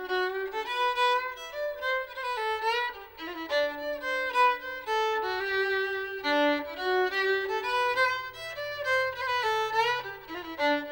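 A fiddle playing a quick tune of many short notes, often sounding two lines at once.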